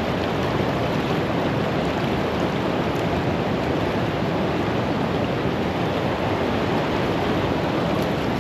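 Fast river current rushing and churning close by, a steady, unbroken rush of water.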